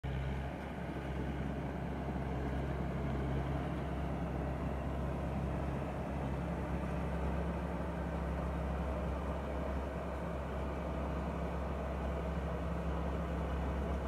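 Tamco All New Pro Z3000 combine harvester's Isuzu 6BG1 six-cylinder diesel running steadily under load while cutting rice, with the whir of its threshing machinery. A tone in the hum steps up slightly about six seconds in.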